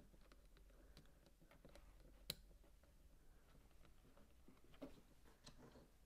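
Faint clicks and taps of plastic LEGO bricks being handled and pressed together, with one sharper click about two seconds in.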